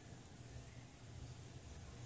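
Near silence: faint room tone with a low, steady rumble and light hiss.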